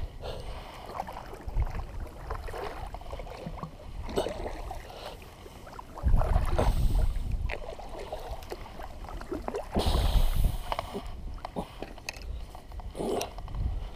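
Water slapping and gurgling against a plastic kayak hull as it drifts fast with the wind, with two stronger gusts of wind rumbling on the microphone, about six and ten seconds in.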